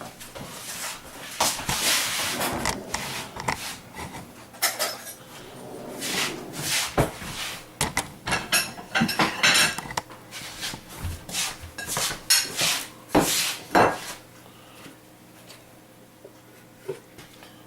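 Kitchen cutlery and pots clattering: a long, irregular run of metal clinks, knocks and scrapes as utensils and a pan are handled, dying away about fourteen seconds in.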